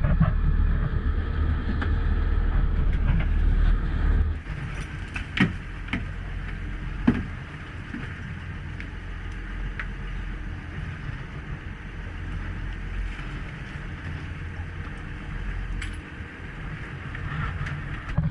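Engine rumbling steadily, with a few sharp knocks; the rumble drops in level about four seconds in.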